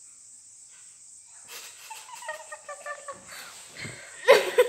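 Children giggling in short breathy bursts, rising to a louder burst of laughter near the end, over a faint steady high-pitched whine.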